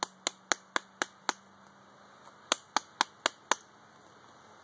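A pack of Camel Filters cigarettes being packed: smacked repeatedly to settle the tobacco in the cigarettes. There are sharp taps at about four a second, a run of six, then a pause of about a second, then a second run of five.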